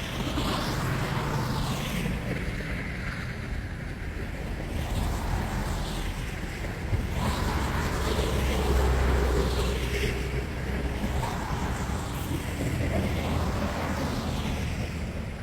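Wind buffeting the microphone: a steady rushing with heavy low rumble, swelling about halfway through.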